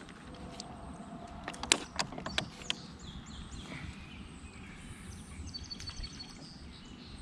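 Faint outdoor background with a few sharp clicks and light knocks, as a fish and scale are handled in a kayak. A short high chirping trill comes about five and a half seconds in.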